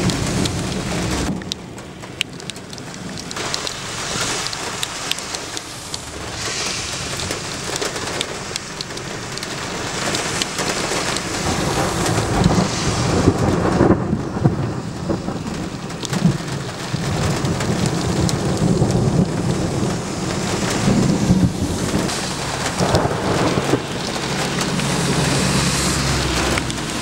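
Thunderstorm sound: steady rain falling, with thunder rumbling low underneath.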